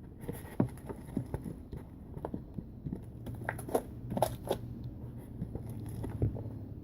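Spatula scraping thick slime off the sides of a mixing bowl: irregular scrapes and sticky clicks, busiest around the middle.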